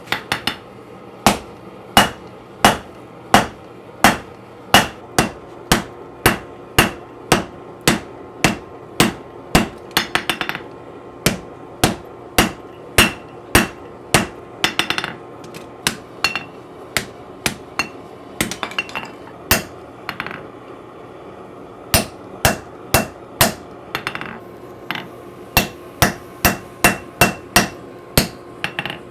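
Hammer blows on hot steel over an anvil as a sword's crossguard is forged: steady strikes about two a second, broken by short pauses and a few runs of quicker, lighter taps, over a faint steady hum.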